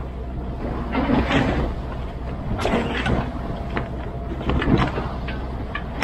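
Sailboat's inboard engine droning steadily under way, with irregular rustling, flapping and sharp clicks from the mainsail and its rigging as the sail is hoisted.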